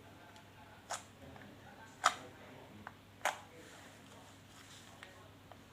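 Homemade slime being squeezed and poked, giving three sharp pops about a second apart with a few fainter clicks between them.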